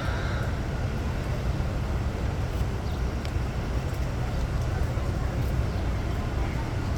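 Steady city street noise: a constant low traffic rumble with a faint hiss above it.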